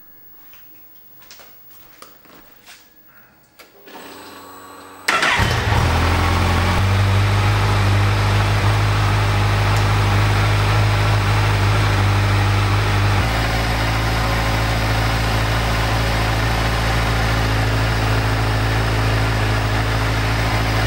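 Kawasaki Ninja 1000's inline-four engine, quiet at first with a brief faint hum, starting about five seconds in and then idling steadily. The idle settles slightly lower about thirteen seconds in.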